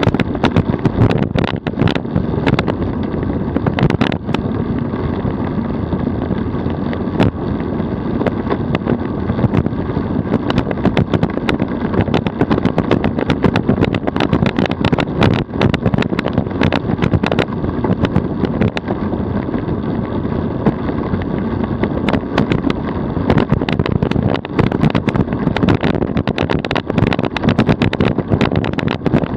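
DF velomobile rolling at about 40 km/h on rough country asphalt: a steady rumble of tyre and road noise carried through the shell, mixed with rushing air, and peppered with frequent small sharp knocks and rattles from bumps and grit.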